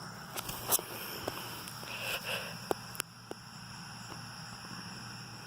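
Faint field ambience: steady high-pitched insect chirring over a low, steady hum, with scattered light clicks and ticks.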